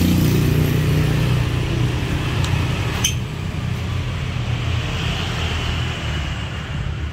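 A motor vehicle's engine running close by on the road, a steady low rumble that slowly fades away. A short click about three seconds in.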